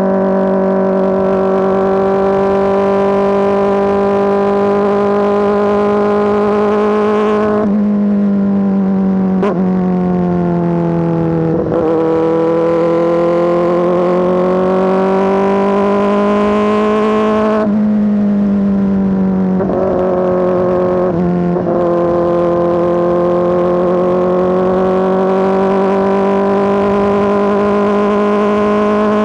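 Kawasaki ZX-4RR inline-four engine through an SC Project S1 exhaust, running loud and held at high revs with a steady pitch. The pitch dips a few times, about eight and eighteen seconds in, and then climbs slowly back.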